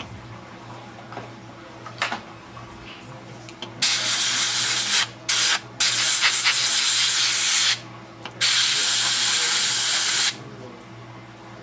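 Dental air syringe hissing in four bursts of compressed air, the second one brief, blowing off the freshly cut cavity preparation.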